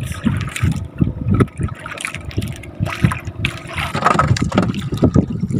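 Water lapping and slapping against the hull of a small boat, with irregular knocks.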